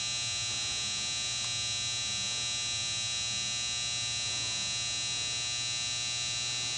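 Band saw's 10 horsepower hydraulic unit with its Rexroth pump running, a steady electric motor hum with a constant high whine.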